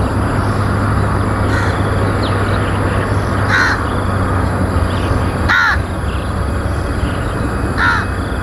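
A crow cawing four times, about two seconds apart, the third caw the loudest, over the steady rumble of a Boeing 747-400F's four jet engines on its takeoff roll.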